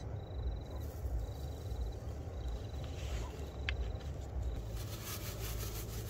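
Water being poured into a cooking pot of rice, heard as a single clink and then a run of splashing near the end. Behind it an insect trills in short bursts over a steady low rumble.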